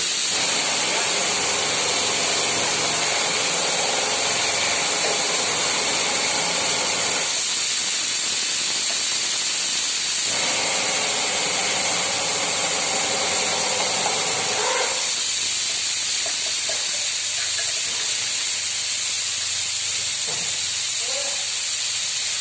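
Loud, steady hissing that stops at the very end, with a fainter pitched sound under it for two stretches, the first about seven seconds long and the second about five.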